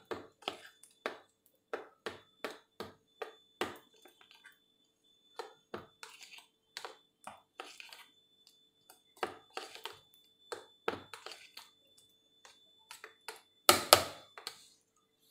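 A metal spoon stirring thick green chutney in a bowl: irregular clicks and scrapes of the spoon against the bowl, with a louder clatter near the end.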